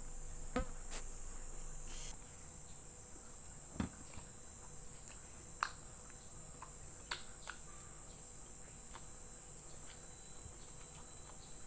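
Mouth sounds of eating by hand: chewing fried noodles and chicken liver, with a handful of short, sharp smacks and clicks spread through, over a steady high-pitched hiss.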